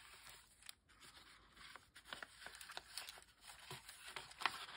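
Faint rustling and sliding of paper cards and envelopes being handled, with scattered soft ticks and scrapes.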